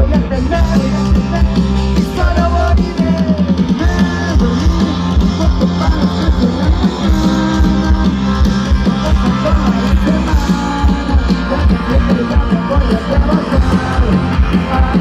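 Rock band playing live through a large outdoor PA: electric guitars, bass and a steady drum beat, loud and dense.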